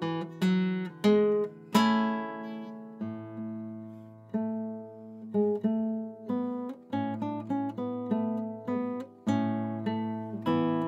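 Classical guitar played fingerstyle: a piece in plucked single notes and chords, each left to ring and fade, over held bass notes. It is played at an unhurried practice tempo, being worked up from slow practice.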